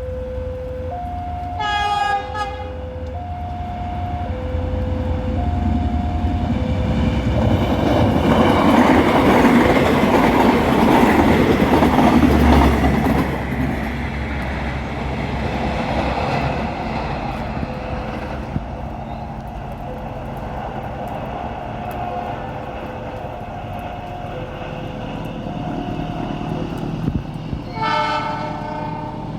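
Level-crossing warning alarm alternating between two tones, while a train passes. The train horn sounds briefly about two seconds in and again near the end, and in between the train's rolling noise swells loudest for several seconds in the middle.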